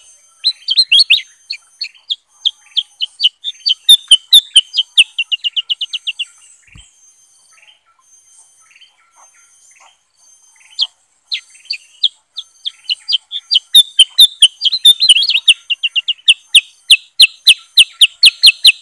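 Caged bulbuls chirping in quick strings of short, sharp notes. The first few seconds are dense, the middle is sparse with scattered calls, and dense fast chirping returns about two thirds of the way in.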